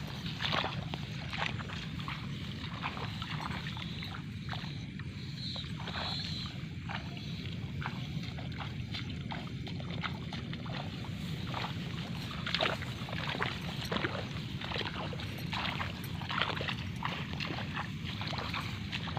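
Footsteps wading through wet rice-paddy mud and water, irregular sloshing and squelching steps, over a steady low hum.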